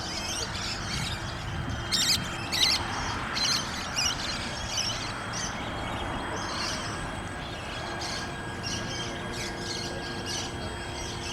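Small birds chirping and calling over and over, with a few louder calls about two seconds in, over a faint steady hum.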